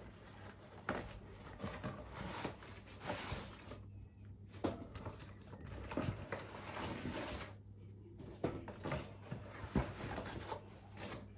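Plastic packaging rustling with scattered light knocks and clicks as the parts of a boxed double towel bar set are unpacked and handled.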